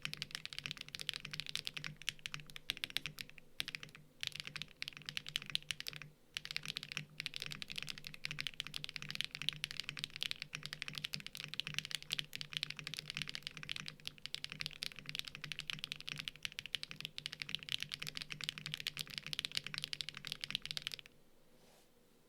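Fast, continuous typing on a Mode Sonnet mechanical keyboard with stock HMX Xinhai switches, a POM plate and Osume Tsukimi keycaps: a dense run of poppy, mid-pitched keystrokes with a few brief pauses. The typing stops abruptly about 21 seconds in.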